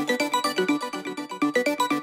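Background electronic music: a fast run of short, bright plucked notes at a steady pace.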